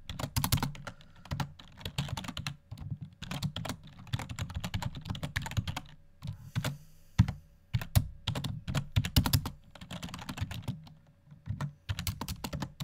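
Typing on a computer keyboard: quick runs of keystrokes, with a brief pause about halfway through.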